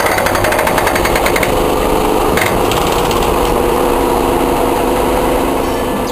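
Historic tram running on street track, heard from the driver's cab: a steady motor hum under a fast, rattling clatter that fills the first second and a half and returns briefly around the middle.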